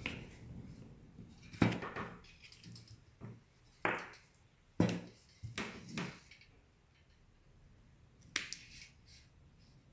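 Scattered sharp clicks and knocks, about five over ten seconds, as the hair dryer's small plastic parts and wiring are handled during rewiring.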